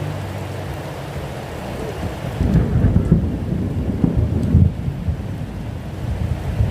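Steady rain falling, with a low rumble of thunder rolling in about two and a half seconds in and lasting around two seconds.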